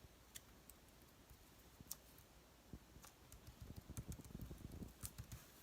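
Faint, scattered clicks and light taps of paper cut-outs being handled and pressed onto a collage page, growing busier about three and a half seconds in.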